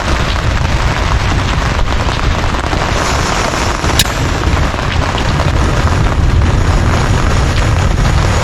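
Heavy rain drumming on a canvas tent with thunder rumbling, loud and steady, and one sharp click about four seconds in.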